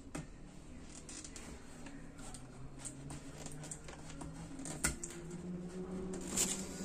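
Cloth rustling and scattered small plastic clicks as wire and ribbon connectors are plugged into a flat-screen TV's boards, with a sharper click about five seconds in and another near the end, over a faint steady low hum.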